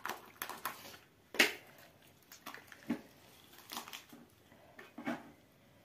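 Whole raw chicken being cut into pieces with a knife on a metal tray: irregular clicks, knocks and cracks from the blade, bones and tray, the sharpest about a second and a half in.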